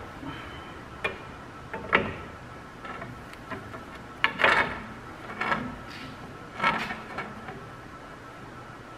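Dana 70 differential carrier being worked into its axle housing with a pry bar: several separate metal clunks and scrapes, a second or so apart.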